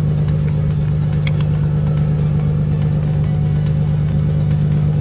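An engine running steadily at one speed, a low, even droning hum.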